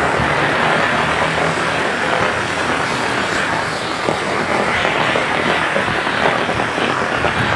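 Heavy rain falling steadily on a paved road, an even, loud hiss.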